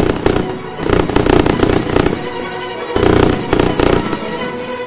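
Fireworks bursting in quick clusters of pops and crackles, over music.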